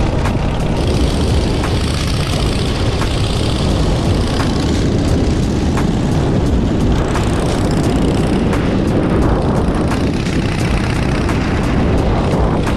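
Motorcycle engine running steadily on the move, under a constant low rumble of noise.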